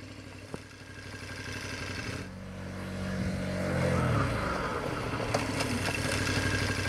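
KTM 1190 Adventure motorcycle's V-twin engine running as the bike comes through a bend, getting louder as it approaches. Between about three and four seconds in the engine note falls as the bike slows under braking in the corner, then it runs on at a steady note.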